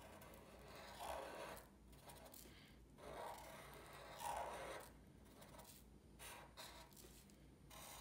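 Faint scratchy strokes of a black Sharpie marker's felt tip drawn across drawing paper, a series of short strokes about a second long with pauses between, as pencil lines are outlined.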